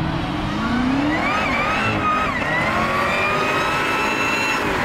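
Car doing a burnout: the engine revs up, then the tyres squeal in a high, wavering tone from about a second in until near the end.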